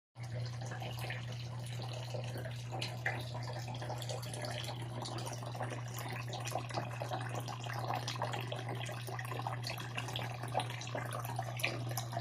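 Small decorative waterfall in a nativity scene, water trickling and splashing steadily with small irregular drips, over a steady low hum.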